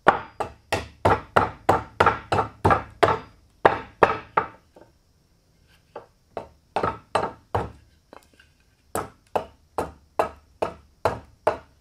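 Carving hatchet chopping into a block of cypress wood, hewing off chips in rapid sharp strikes, about three a second. The strikes stop for about a second and a half near the middle, resume briefly, pause again, then continue steadily.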